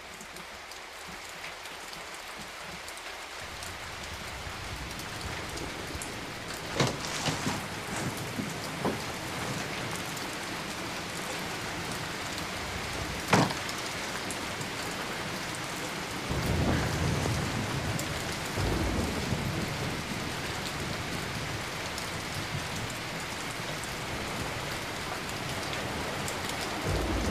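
Steady rain, growing louder over the first few seconds, with a few sharp cracks around a quarter and half way through and a low rumble of thunder about two-thirds in.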